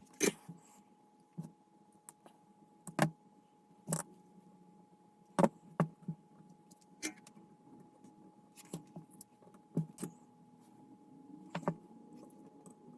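Scattered small clicks and taps, about a dozen at uneven intervals, from hands handling small parts and tools while connecting a resistor into a model's light wiring. A faint steady hum runs underneath.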